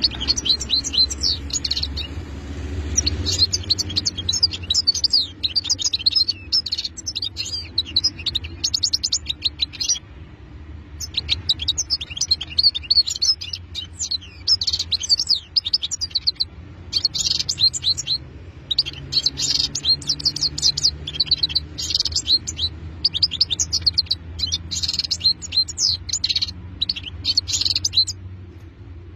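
European goldfinch singing: long runs of rapid, liquid twittering broken by a few brief pauses, over a low steady rumble.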